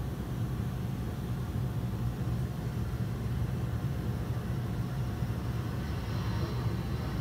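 Reef aquarium pumps running with a steady low hum over a hiss of circulating water; the hiss rises a little near the end.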